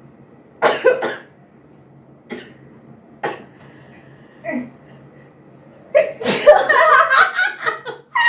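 A person sneezing and sniffing, the sneezes set off by tickling the inside of the nose. A sharp double burst comes about a second in, then a few short sniffs and coughs, and a longer, louder fit of sneezing near the end.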